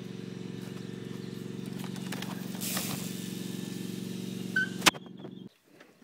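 A steady low mechanical hum that cuts off suddenly about five and a half seconds in, with a brief hiss near the middle and a sharp click just before the hum stops.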